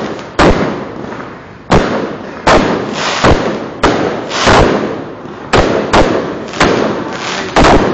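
Fireworks exploding in rapid succession: about a dozen loud bangs at uneven intervals, one to two a second, each trailing off in a fading echo.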